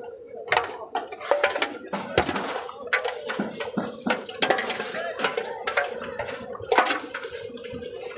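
Irregular clatter of knocks and clinks, like hard objects being handled, over a steady faint hum.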